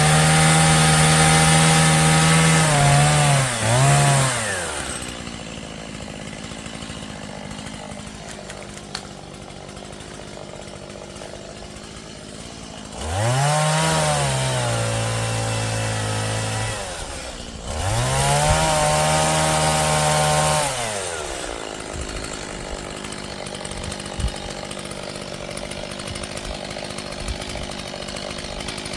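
Chainsaw cutting dry trees and brush: it runs at full throttle, drops to idle about three seconds in, then revs up twice near the middle for a few seconds each, its pitch sagging as it works in the wood, and idles in between and afterwards.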